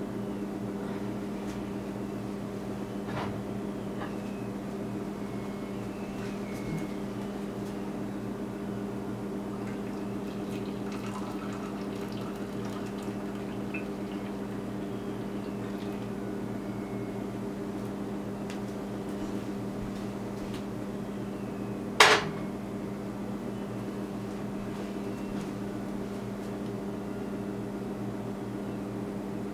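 Tea pouring from a teapot into a glass mug over a steady low hum, with one sharp click about three-quarters of the way in.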